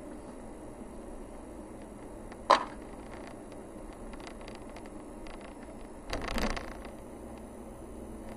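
Steady engine and road rumble of a car driving slowly along a rough forest road, heard from inside the cabin. A single sharp knock about two and a half seconds in, faint scattered ticks, and a short louder rattle a little after six seconds.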